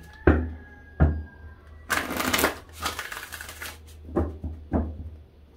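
Tarot cards being shuffled by hand. A couple of sharp knocks of the deck are followed, about two seconds in, by nearly two seconds of rapid card rustling, then two more knocks near the end.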